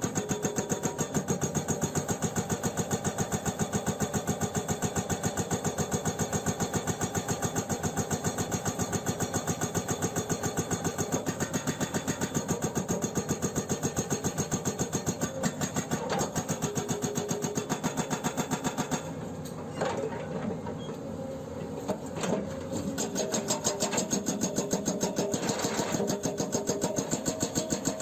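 Excavator-mounted hydraulic breaker hammering rock in rapid, evenly spaced blows over the steady drone of the Hyundai 210LC-7's diesel engine. About two-thirds of the way through, the blows stop for a few seconds, leaving the engine alone, and then start again.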